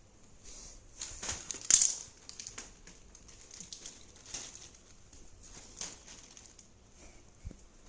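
Plastic sheeting of a handmade kite crinkling and rustling as the kite is handled, in irregular bursts, the loudest about two seconds in.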